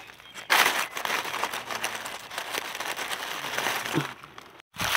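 Dry leaf litter rustling and crackling as hands dig through it and pull mushrooms from the forest floor, with a brief dropout near the end.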